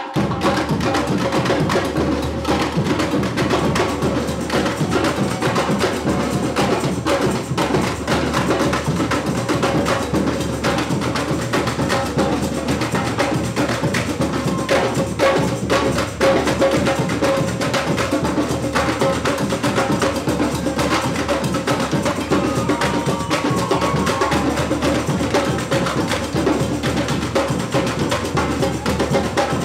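Samba percussion ensemble (bateria) playing a fast, dense, unbroken groove: surdo bass drums under many sharp stick strikes on small drums, in a partido alto samba rhythm.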